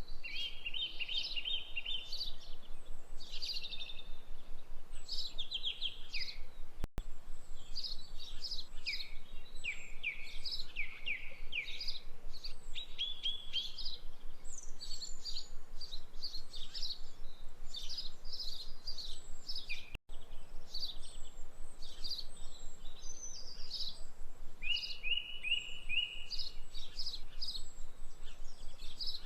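Many small birds chirping and trilling without pause, a dense chorus of short calls and quick falling trills. The sound drops out for an instant about twenty seconds in.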